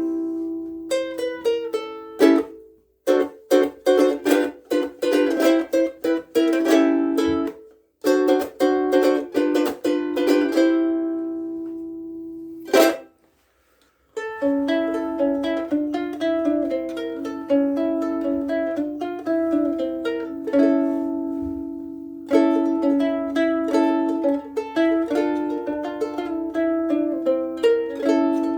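KoAloha Pineapple Sunday ukulele with pine sides and back and UkeSA strings, played as chords in short strummed phrases with brief pauses between them. After a single sharp strum and a moment of silence about halfway through, it plays a continuous picked-and-strummed passage.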